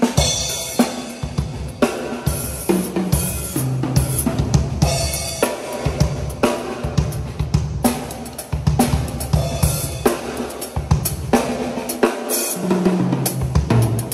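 Mapex acoustic drum kit with Paiste PST cymbals played in a busy groove: snare and bass drum hits, rolling tom fills that ring at distinct low pitches, and repeated cymbal crashes.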